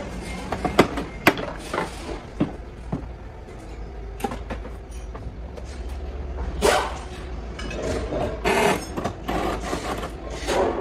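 Scattered sharp knocks and clicks of plastic and metal parts being worked loose and handled while a Toyota Vitz hatchback is taken apart, with busier clattering in the second half, over a steady low rumble.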